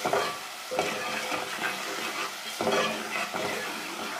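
Masala of onion, tomato, ginger-garlic paste and ground spices frying in ghee in a pan, sizzling steadily while it is stirred, with a few scraping strokes across the pan. This is the bhuna stage, where the spice paste is fried before the dal goes in.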